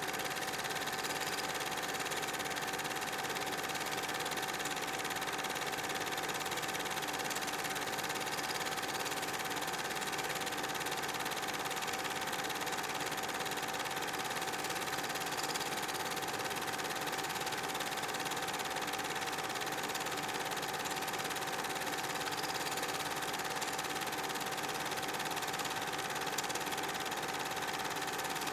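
Cine film projector running: a steady mechanical whir and clatter with a constant humming tone, unchanging throughout.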